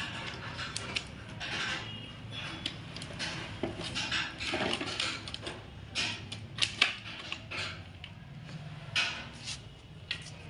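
Irregular clinks and knocks of metal engine parts and tools being handled during tractor engine reassembly, the loudest knocks about seven seconds in.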